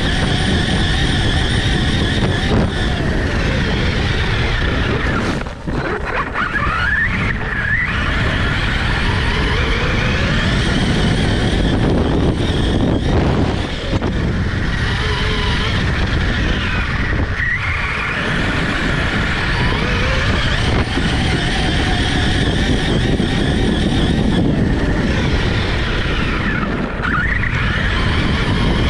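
Onboard sound of an Arrma Kraton RC monster truck driven fast over grass. Its brushless electric motor whines, rising and falling in pitch with the throttle several times, over a steady rumble of tyres and drivetrain.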